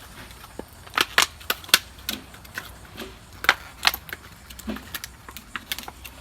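Stiff plastic packaging around a pressure-washer spray nozzle being pried and pulled apart by hand: a run of sharp, irregular cracks and snaps, loudest in clusters about a second in and again past the middle.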